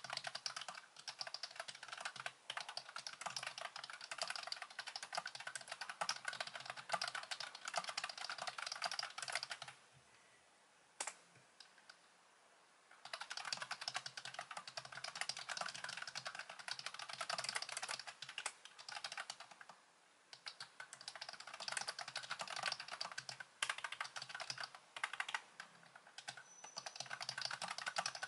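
Fast typing on a low-profile computer keyboard: a dense patter of key clicks, breaking off for about three seconds near the middle with a single tap in the gap.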